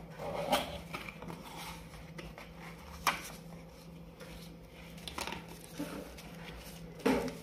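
Cardboard box being opened and its contents handled: scattered light scrapes and taps of the cardboard lid and a paper packet, with one sharper tap about three seconds in.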